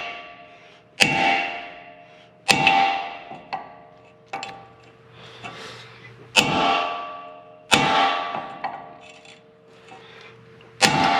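Hammer blows on a hammer-type crimping tool, crimping a copper lug onto a battery cable. The strikes come a second or a few seconds apart, four loud and a few lighter taps, each ringing out and dying away.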